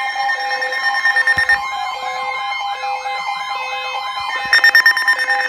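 Several Emergency Alert System severe thunderstorm warning alerts sounding at once: steady attention tones layered with a siren-like warble that rises and falls about three times a second and an on-off beeping tone. Short buzzy data bursts cut in about a second in and again near the end.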